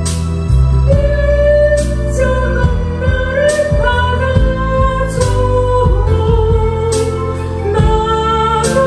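A woman singing a slow Korean gospel song into a microphone over instrumental accompaniment with a steady drum beat.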